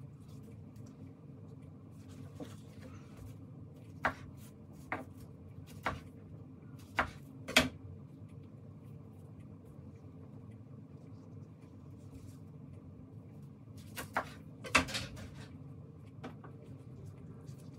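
Sporadic light wooden knocks and clicks as sushi pieces and utensils are set down on a wooden serving boat and cutting board: a cluster of five through the middle and two more near the end, over a steady low hum.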